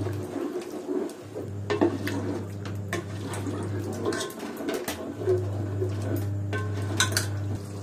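Wooden spatula stirring and scraping thick yogurt-tomato masala in an aluminium pot, with scattered knocks of the spatula against the pot's side, over a steady low hum.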